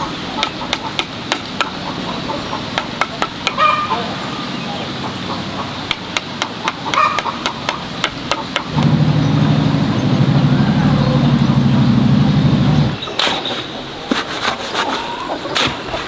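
Steel trowel scraping and tapping on wet mortar and stone in quick sharp clicks, with chickens clucking. About halfway through, a loud steady low drone sets in for about four seconds, then stops suddenly.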